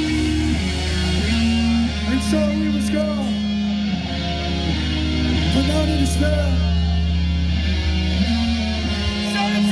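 Live hardcore band playing loud distorted electric guitar chords over held bass notes; the deep bass note drops out near the end.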